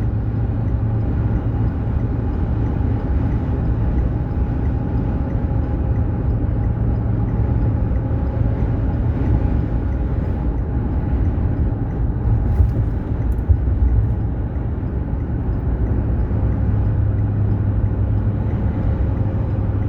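Steady road and engine noise of a moving vehicle heard from inside the cabin: a continuous low rumble with a faint steady hum. A couple of brief clicks come about halfway through.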